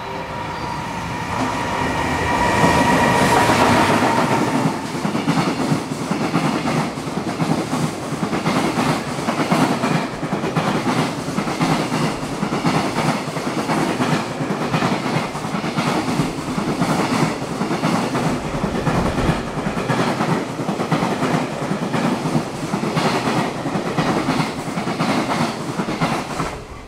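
JR Freight EF210 electric locomotive passing through at speed, loudest in the first few seconds with a steady whine as it goes by. A long freight train's wagons follow, clattering over the rail joints in a quick, regular rhythm. The clatter drops off suddenly near the end as the last wagon clears.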